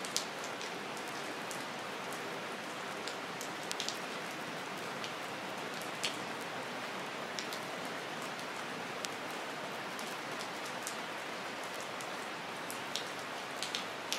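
Steady rain falling: an even hiss with scattered sharp drop clicks.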